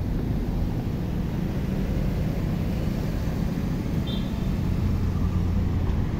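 City street traffic: cars driving past close by, a steady rumble of engines and tyres on the road.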